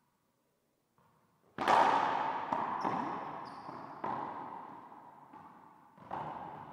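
Racquetball serve and rally: a hard crack of the ball about one and a half seconds in, then more sharp hits of ball on racquet, wall and floor about a second apart. Each hit rings out in the court's echo, and brief high squeaks come in between.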